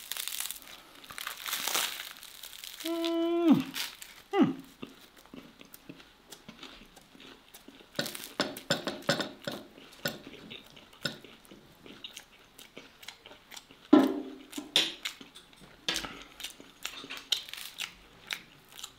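Close-up eating sounds: a bread roll stuffed with saucy steak is squeezed, bitten and chewed, with crackly crunching of the crust and irregular chewing clicks. A short hummed 'mmm' comes about three seconds in, and another later on.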